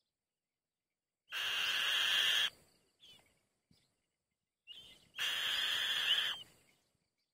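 White-tailed kite chicks giving two harsh, hoarse calls, each lasting about a second, roughly four seconds apart.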